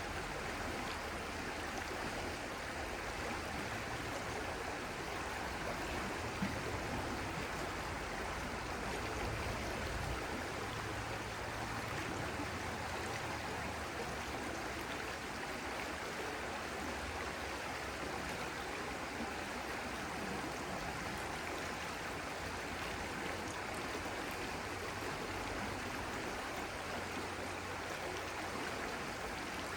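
Stream water flowing steadily, an even, unbroken rushing sound.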